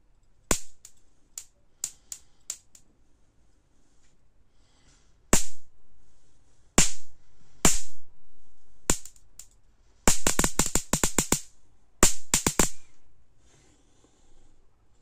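High-voltage sparks snapping from the output of a home-built capacitor-diode mosquito-killer circuit running on 220 V AC, as a screwdriver tip is brought to its output wires. Sharp single cracks come a few seconds apart, with a quick rattling run of them about ten seconds in and another about twelve seconds in.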